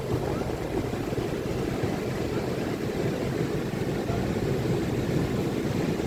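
Ocean surf breaking on a beach: a steady, low rumble of waves.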